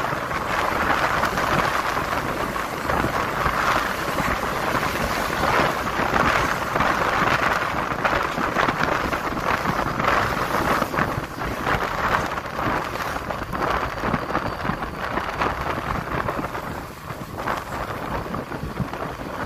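Wind rushing and buffeting over the microphone of a camera on a moving motorcycle, with road and traffic noise under it; it eases a little near the end.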